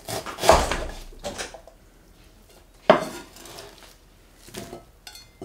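A few separate knocks and clatters of a kitchen knife and dishes on a wooden cutting board as sliced onion is handled. The loudest comes about half a second in, with a sharp click near three seconds and quieter knocks between.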